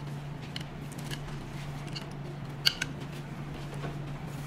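Light clicks and taps of plastic and metal parts being handled as a metal end cap is pulled off a massage roller handpiece, with one sharper click about two-thirds of the way through. A steady low hum runs underneath.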